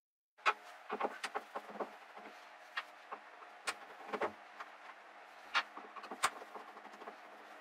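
Irregular small clicks and knocks of hands handling screws and fittings at a plastic water tank's inspection hatch, over a faint steady hum.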